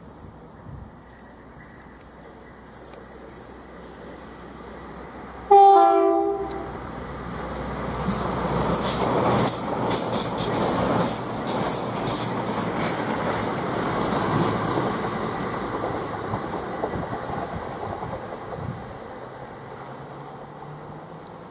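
A Class 220 Voyager diesel multiple unit sounds a short two-tone horn, then passes at speed. Its wheel and rail noise swells with a rapid clickety-clack over the rail joints and then fades away.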